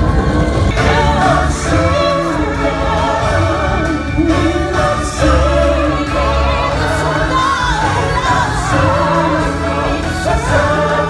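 Stage-show music: a group of singers with vibrato over a steady backing track, played loud through an auditorium's sound system.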